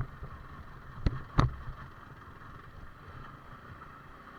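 Yamaha R15 V4 motorcycle being ridden on a rough off-road track: steady ride noise with two sharp knocks a little over a second in.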